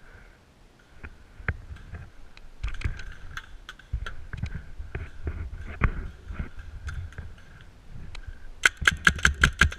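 Paintball marker and gear being handled, with scattered clicks and knocks, then near the end a rapid string of marker shots at about eight a second.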